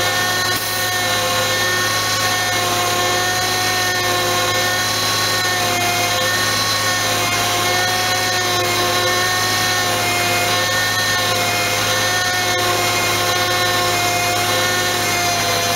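Bed truck's engine and winch drive running under load as the winch pulls a spun-out cement bulker, a steady whine whose pitch wavers slightly over a low steady hum.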